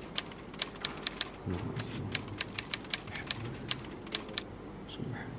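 Typewriter key-strike sound effect for a caption typed out letter by letter: a quick run of sharp clicks, about four or five a second, that stops a little after four seconds in.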